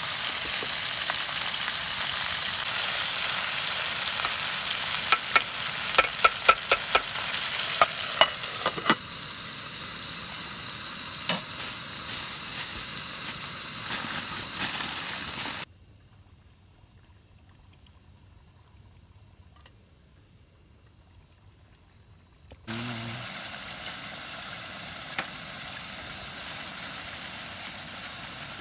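Chicken pieces sizzling as they fry in an aluminium pot, with a metal spoon clicking sharply against the pot in quick strokes about five to nine seconds in. The sizzle weakens, drops away almost entirely for about seven seconds, then comes back more softly.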